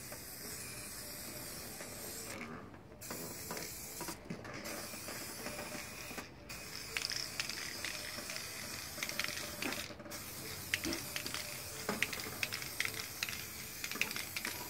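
Aerosol spray can of BG headlight coating hissing in long passes, broken by four short pauses. From about halfway a crackle of small clicks runs over the hiss.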